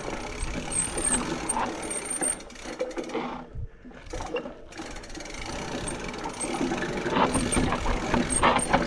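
Mountain bike rolling down rock slabs and a rocky trail: tyre and bike noise strewn with small knocks. It goes quieter in the middle, and a few sharper knocks come near the end.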